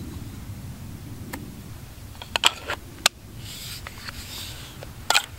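Mora 510 knife being drawn and pushed back into its plastic sheath: a series of sharp plastic clicks, a quick cluster about two seconds in, and a short scraping hiss in the middle.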